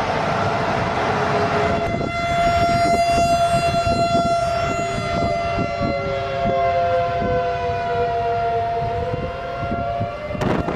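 Aircraft jet engines whining with several steady tones over a rumbling roar; one tone slides down in pitch partway through and then rises again. Wind buffets the microphone near the end.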